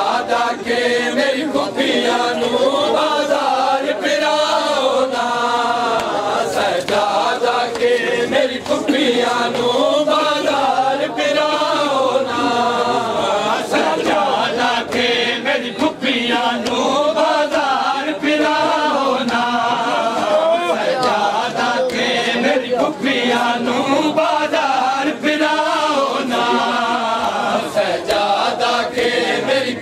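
A group of men chanting a noha, a Shia mourning lament, in unison, with the slaps of hands beating bare chests in matam sounding through the chant.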